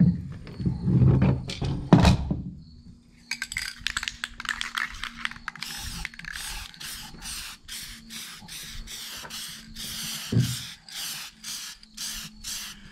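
Aerosol can of WD-40 Specialist Dry Lube spraying in a long series of short hisses, about two a second, onto a rusty chain-type fence wire stretcher. For the first couple of seconds the stretcher's metal joints are worked by hand, rubbing and clunking, before the spraying starts.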